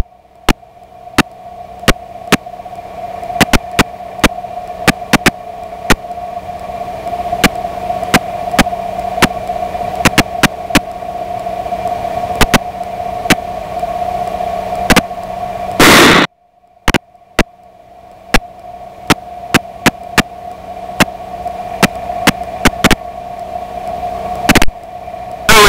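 Aircraft headset audio feed with nobody talking: steady hiss and a constant hum tone, broken by frequent sharp crackling clicks of static, swelling slowly in level. About two-thirds of the way through, a short loud burst of noise is followed by a brief dropout, and then the hiss and hum build up again.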